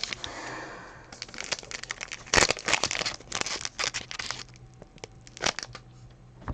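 Trading card packaging being torn open and crinkled, with a quick run of sharp crackles and snaps in the middle.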